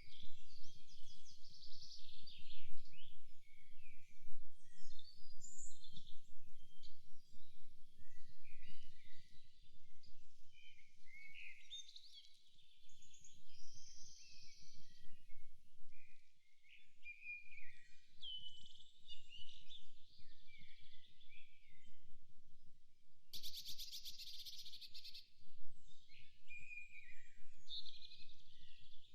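Forest birds singing and chirping, many short overlapping calls and whistles, over a faint low rumble. About three-quarters of the way in, a fast buzzing trill lasts about two seconds.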